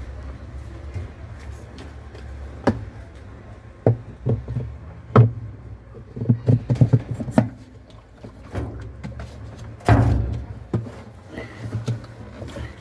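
Knocks and clatter of a washing machine's agitator being handled and fitted into place: a scattered run of sharp knocks with a louder thump near the end, over a low steady hum.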